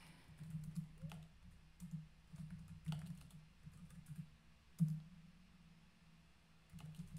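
Typing on a computer keyboard: a run of soft, irregular key clicks, with one louder keystroke about five seconds in. A short lull follows, and typing starts again near the end.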